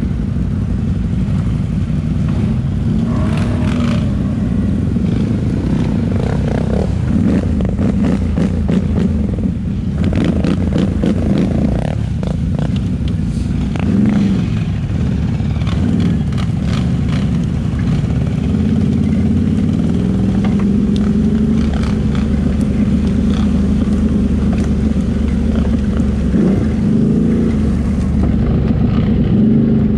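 Can-Am Renegade 800 ATV's V-twin engine running under way, its pitch rising and falling as the throttle changes. Scattered clicks and rattles come through in the middle stretch.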